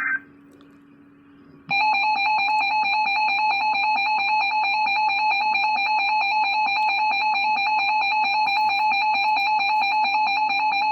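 Emergency Alert System attention signal: a steady, piercing electronic alert tone that starts about two seconds in, sounds for about nine seconds and cuts off suddenly. It follows the tail of a buzzy digital data burst of the alert header at the very start.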